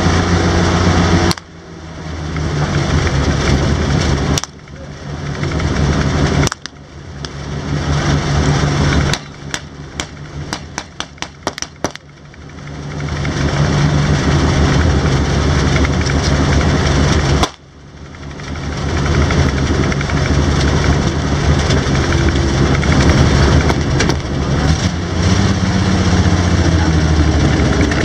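Studebaker M29C Weasel's six-cylinder engine running, heard from on board the open vehicle. The level drops suddenly several times and builds back up each time, and a run of sharp clicks comes about ten seconds in.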